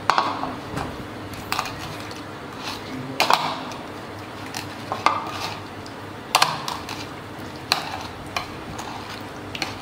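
Steel ladle clinking and scraping against a bowl as fish soup is stirred and scooped, with sharp irregular clinks about once a second.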